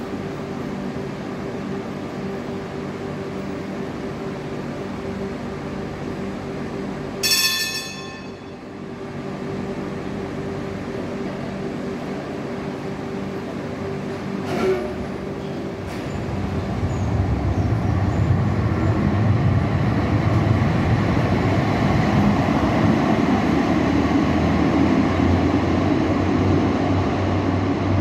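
Tram standing at an underground platform with its equipment humming steadily, a short ringing chime about a quarter of the way in, then the tram pulling away: traction motors and steel wheels on the rails grow louder and hold a rumble through the second half, echoing in the tunnel station.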